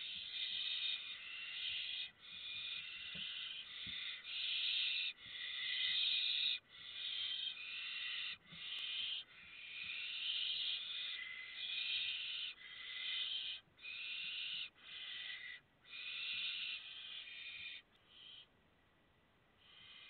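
Barn owl chicks giving their hissing, rasping food-begging calls (the 'snoring' call), one after another in calls of about half a second to a second each. The calls stop shortly before the end.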